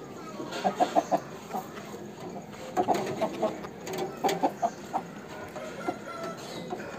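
Aseel chickens clucking in several quick runs of short notes.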